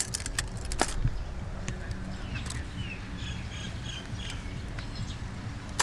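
Light clicks and clatter of plastic sunglasses being picked through in a tray, mostly in the first second, with short bird chirps in the middle over a steady low rumble.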